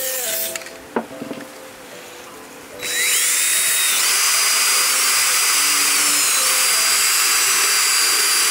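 A short hiss of an aerosol cleaner spray, then about three seconds in a cordless drill fitted with a wire cup brush spins up with a rising whine. It runs steadily, scrubbing rust and grime off a metal brake pad shim.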